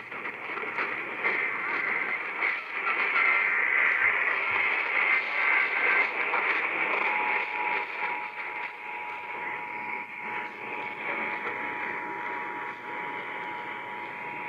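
Emergency Alert System test over a radio receiver, with static throughout. The first few seconds hold harsh, buzzy data bursts, typical of the digital SAME header. About seven seconds in, the steady two-tone EAS attention signal starts and holds to the end.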